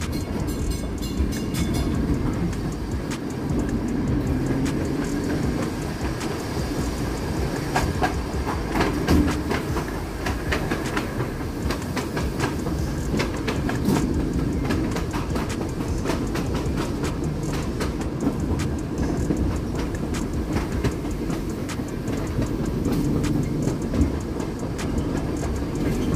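1944 PCC streetcar running along the track, heard from inside the car: a steady rumble of steel wheels on rail with frequent irregular clicks and clacks.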